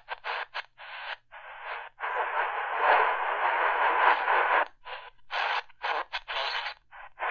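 Tecsun PL-380 portable radio's speaker hissing with static while it is tuned between medium-wave stations. The static comes in short bursts that cut out with each tuning step, with a steadier stretch of hiss in the middle.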